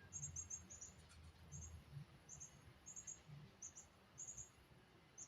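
Faint, high chirping in short groups of two or three pulses, repeating about once or twice a second: a cricket chirping, over a low hum of room tone.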